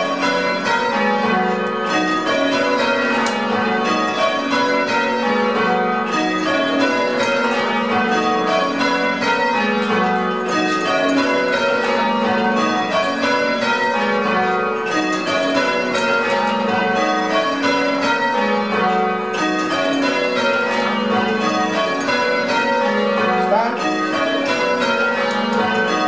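A ring of church bells being rung full-circle in change ringing, the bells striking one after another in a steady, continuous rhythm, heard from the ringing chamber beneath them where the ropes are pulled.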